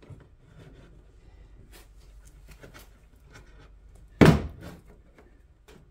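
Front bumper cover of a 2014 Dodge Charger being worked out of its fender bumper stay: faint plastic handling clicks, then one loud plastic thunk about four seconds in as the cover pops free.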